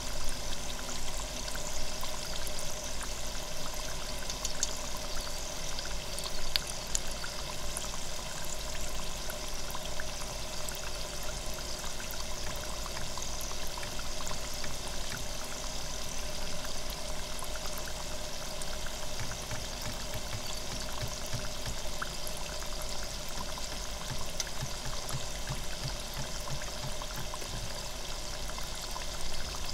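Hot oil in an electric deep fryer bubbling and sizzling steadily around a loempia (spring roll) frying in the basket, with fine crackles running through it.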